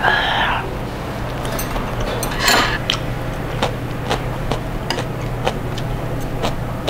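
Steel chopsticks clicking and tapping against side-dish plates in a series of light, irregular clicks, with a brief scrape about two and a half seconds in. A short breathy exhale after a shot of soju opens it, and a steady low hum runs underneath.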